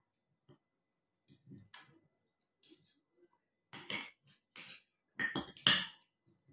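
Scattered soft mouth noises of someone eating, then a few louder sips and gulps from a glass of water in the last couple of seconds.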